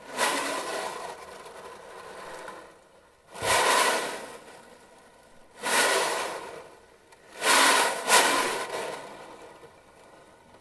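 Sound-effect dance soundtrack made of noise swells: five rushes of hiss that each start sharply and fade over a second or two, over a faint steady hum.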